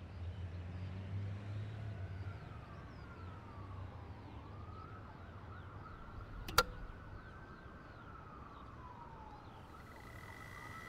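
Faint distant siren wailing slowly up and down, over low traffic rumble and faint high chirps. A single sharp click sounds about two-thirds of the way through, and a steady high electronic tone starts just before the end.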